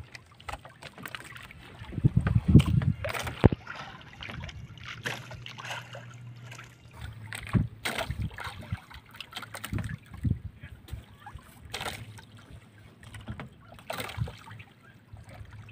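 Wet gill net being hauled hand over hand into a small boat: water dripping and splashing off the mesh, with irregular knocks and rustles as net and fish are piled into a plastic crate. A louder thud comes about two to three seconds in.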